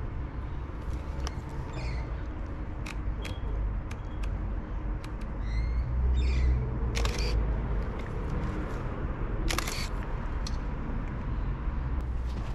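Film SLR camera clicking as photos are taken: several sharp shutter clicks, with two longer, louder clicking bursts in the second half. Short high chirps and a low steady rumble sit underneath.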